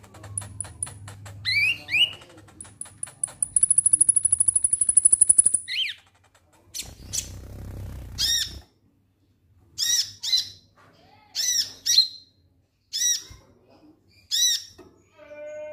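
Caged konin calling: a run of sharp chips, a fast high trill lasting about two seconds, then a string of short, harsh downward-sweeping 'ngek' calls about once a second.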